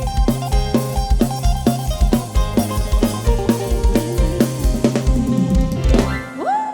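Loud live band music from a Thai rot hae sound-truck show: an instrumental passage with a steady drum-kit beat, heavy bass drum and snare, deep bass line and keyboard notes. Near the end the beat drops out briefly and a rising glide leads into the next part.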